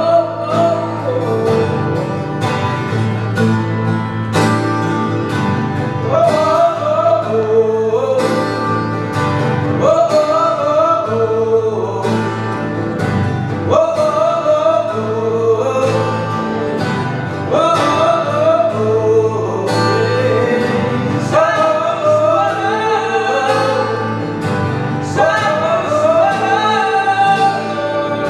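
Malay folk song: acoustic guitars strummed and picked, with a man singing a melody over them in phrases a couple of seconds long.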